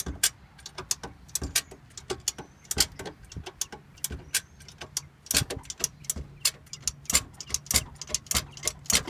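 Car jack being pumped down to lower the car: a rapid, irregular run of metallic clicks and clacks, several a second.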